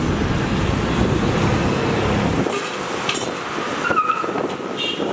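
Road traffic rumbling past, dropping away about halfway through, then a couple of sharp clinks of a serving spoon against steel food pots.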